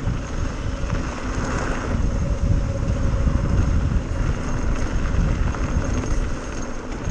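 Wind buffeting the microphone on a fast mountain-bike descent, a steady loud rumble with the bike rolling over a dirt trail underneath.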